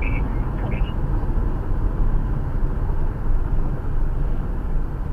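Steady road and engine noise of a car driving at highway speed, heard from inside the cabin: a constant low rumble with tyre hiss.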